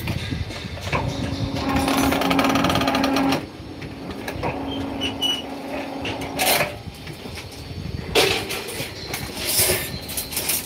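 Electric rebar bending machine running. Its motor hums steadily, loud for a couple of seconds and then quieter, and several sharp metallic clanks of steel bar follow in the second half.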